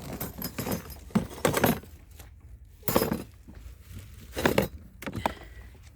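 Objects being handled and knocked together: about five short clinks and clatters spread over a few seconds.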